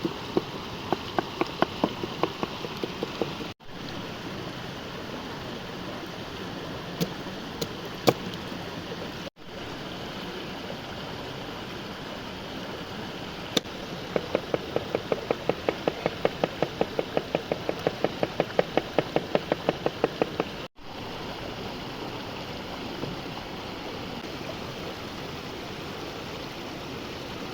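A stream running steadily, with runs of quick, sharp taps over it: an uneven run at the start and a regular run of about five taps a second in the middle. The sound cuts out for a moment three times.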